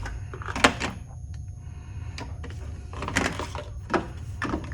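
A few light clicks and rustles from small parts being handled on a workbench, over a steady low hum.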